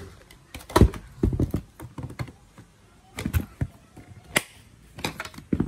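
Hard plastic Ryobi 18V cordless tool housings knocking and clacking against each other as they are handled and shifted in a box: irregular short clacks, some in quick clusters.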